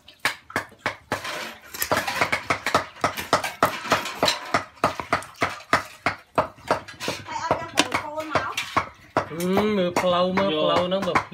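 Cleaver chopping a cooked chicken through the bone on a round wooden chopping block: a quick run of sharp knocks. A person's voice joins in near the end.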